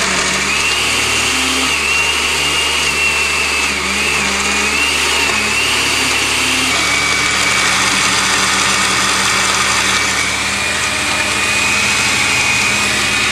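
Countertop blender running on a thick mix of ice cream, pudding, Snickers bars and banana. Its motor whine wavers in pitch for the first half, then settles a little lower and steadier for the rest.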